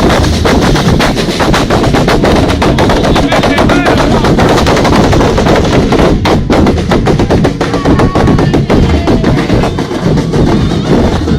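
Murga drum section pounding out a fast, dense rhythm on bass drums with attached cymbals (bombos con platillo), loud and distorted on the recording.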